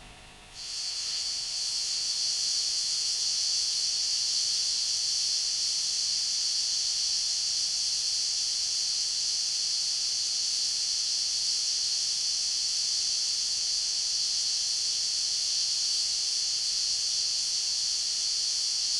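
A steady high-pitched hiss, even and unchanging, coming in about half a second in.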